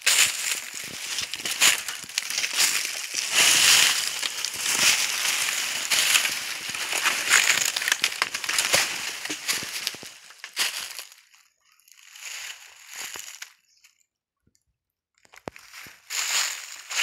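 Footsteps crunching and crackling through dry fallen bamboo leaves and twigs, dense for about ten seconds, then sparser, with a brief pause before they start again near the end.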